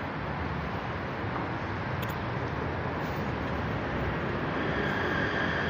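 Steady running noise of a moving escalator mixed with the hum of street traffic, with a faint high whine coming in near the end.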